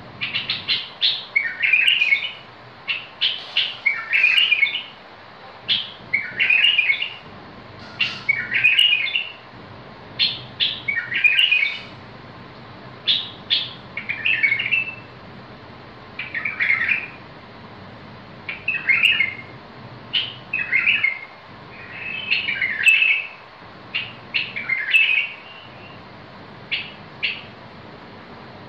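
A caged bulbul singing: short, bubbly warbled phrases repeated every second or two, with sharp single notes between them.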